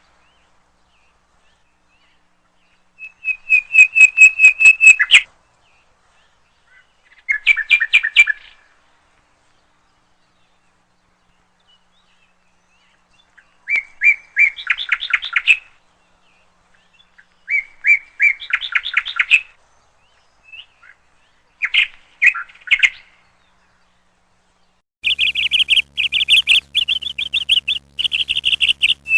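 A songbird singing in short phrases of rapid repeated high notes, each phrase a second or two long, with pauses between them.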